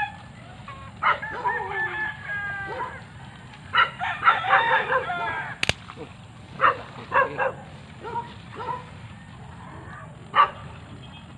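Rooster crowing: two long crows, then several shorter calls. A single sharp click comes about halfway through.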